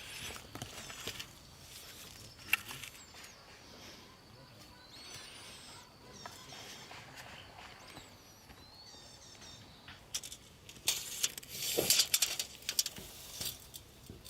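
Small birds chirping now and then, with scattered sharp knocks, then a stretch of louder rustling and knocking near the end.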